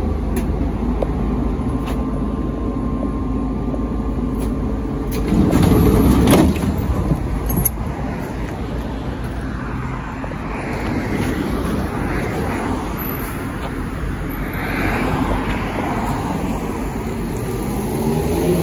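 ZIU-682 trolleybus in motion: a steady low running rumble with scattered clicks and rattles, and one louder clatter about six seconds in. A rising motor whine starts at the very end.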